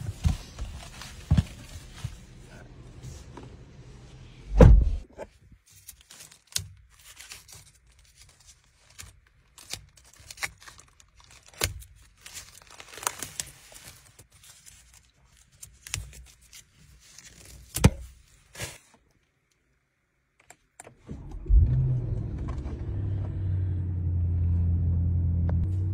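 Protective plastic wrap rustling and tearing off a new Bentley's steering wheel, with scattered clicks and one loud thump. Near the end, the car's engine starts and settles into a steady low idle hum.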